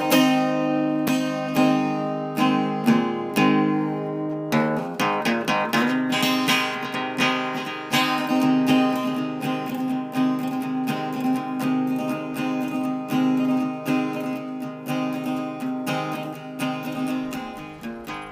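Acoustic guitar music, plucked and strummed with a steady rhythm, gradually getting quieter toward the end.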